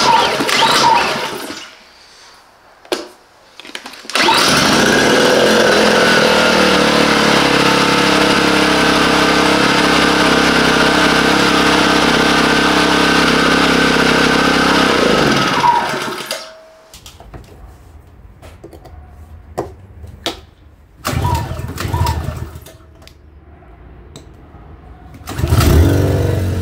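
Small 56cc petrol engine of a Parkside PISE 800 A1 inverter generator running steadily for about eleven seconds, then winding down and stopping. Shorter bursts of engine sound come near the start and near the end.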